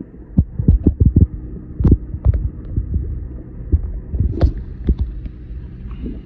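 Steady low hum of a boat's machinery, with many irregular dull thumps over it.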